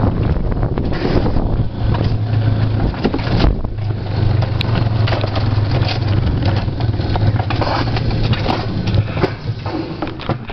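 Alpine coaster sled running fast down its tubular steel rails: a steady low rumble of the wheels on the track, with frequent rattling clacks from the sled.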